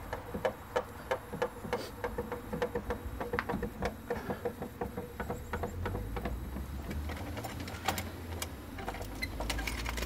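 Scissor jack being cranked down with its rod handle to lower the car, the screw and the hooked crank knocking and clicking rhythmically, about three clicks a second at first and more spaced out later.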